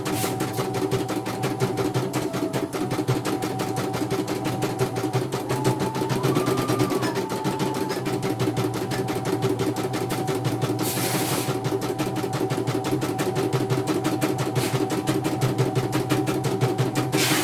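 CNY portable embroidery machine stitching a design: the needle bar runs at a fast, even tick-tick rhythm over the hum of its motor, steady throughout.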